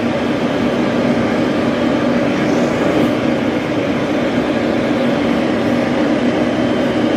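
Pet grooming dryer running steadily, air rushing from its hose with a constant motor hum.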